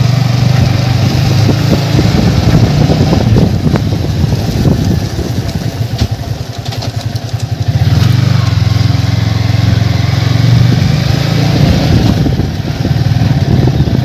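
Yamaha sport motorcycle engine running as the bike is ridden slowly, heard from the rider's seat. The engine note eases off and gets quieter for a couple of seconds around the middle, then picks up again.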